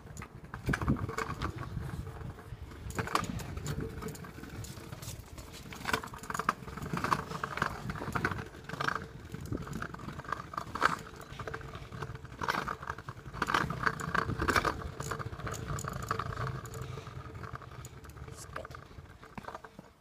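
Trick kick scooter rolling over pavement: a steady rumble from the wheels with irregular rattles and clicks.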